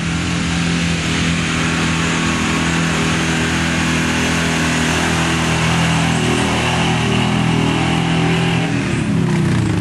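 Truck engine running hard at steady high revs under load, easing off near the end.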